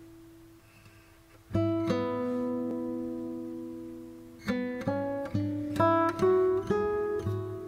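Background music on acoustic guitar: a chord strummed about one and a half seconds in that rings out, then a run of single plucked notes, about two a second, from about four and a half seconds in.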